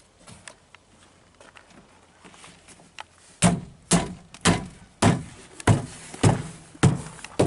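A series of about eight evenly spaced thumps, a little under two a second, starting about three and a half seconds in: a hand knocking the door panel of a Mercedes-Benz W108 against the door to seat it as it is refitted.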